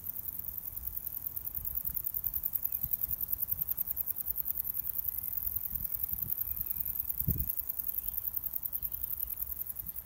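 Insects stridulating in the meadow grass: a continuous, very high-pitched, fast-pulsing buzz. Beneath it runs a low rumble, with one dull low thump about seven seconds in.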